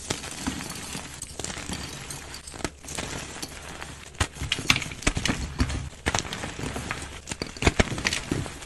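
Blocks of white gym chalk breaking and crumbling in the hands: a dense run of crunchy crackles and soft powdery crumbling, with several sharper snaps as pieces break apart, the loudest near the end.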